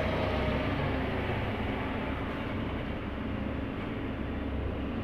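Rexroth A10VO45 variable-displacement axial piston pump running on a hydraulic test bench, driven by the bench motor: a steady mechanical hum with a hiss above it that eases slightly about two seconds in.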